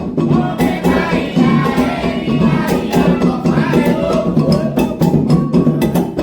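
Candomblé ritual music: atabaque hand drums and a struck agogô bell keep a steady rhythm under group singing.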